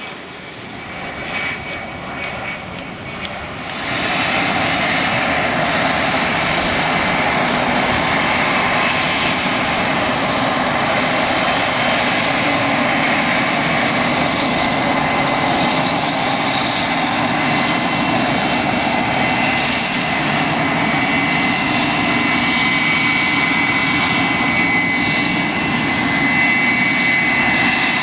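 Embraer Legacy 500 business jet's twin Honeywell HTF7500E turbofans running at taxi power as it rolls past: a steady rushing hiss with a high whine over it. The sound rises sharply about four seconds in and then holds steady.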